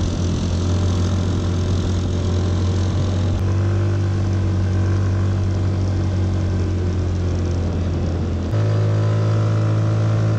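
Yamaha Mio Sporty scooter's small single-cylinder engine running steadily under throttle on an uphill climb. About eight and a half seconds in, its note steps up in pitch and gets a little louder.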